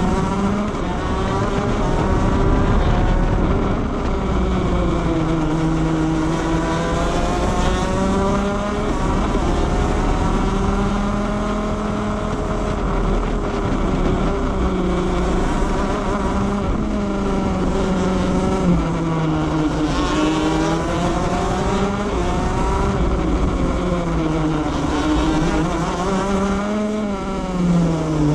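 Shifter kart's 125cc two-stroke engine heard onboard at racing speed, its pitch climbing as it pulls through the gears and dropping again on braking and downshifts for each corner, with a quick series of downshifts near the end.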